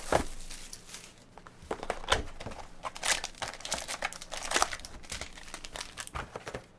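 Plastic wrapping crinkling and tearing in irregular crackles as a sealed trading-card box is unwrapped.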